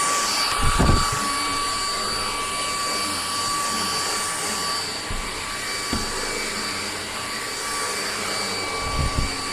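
Oraimo cordless stick vacuum with a brushless motor running steadily: a high whine over a rushing airflow hiss. A few dull knocks come through as the floor head works the carpeted steps.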